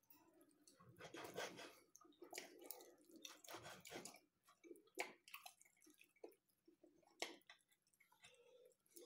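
Knife and fork cutting through a pizza on a wooden board: faint scraping, crunching strokes over the first few seconds, then a few sharp clicks of cutlery.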